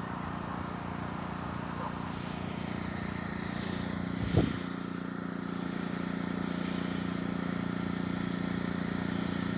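Vehicle engine running steadily, with a single short thump about four seconds in.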